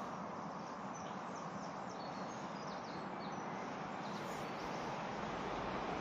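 Birds singing in the dawn chorus, short high chirps scattered through the first few seconds over a steady background hiss; a low rumble builds near the end.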